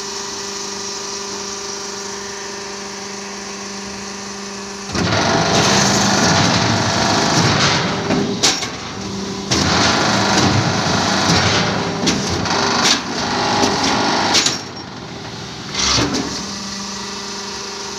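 Hydraulic block-making machine: its pump motor hums steadily, then about five seconds in a loud mechanical clatter starts as the press works a cycle. The clatter runs in stretches with short breaks, stops at about fourteen and a half seconds, and comes back in one brief burst shortly after.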